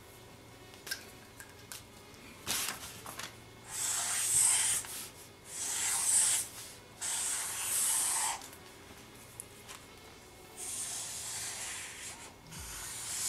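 Felt-tip marker drawing on a paper pad: a series of scratchy rubbing strokes, most about a second long, with a longer stroke near the end.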